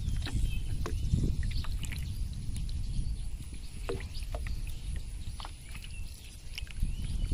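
Water sloshing and splashing in a plastic basin of fish fry as it is dipped and tipped into a pond, over a steady low rumble, with scattered small clicks and drips.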